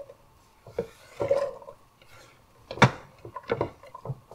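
Diced onion being scraped off a wooden cutting board into a pot: scattered scrapes and light knocks of wood and pot, with one sharper knock about three seconds in.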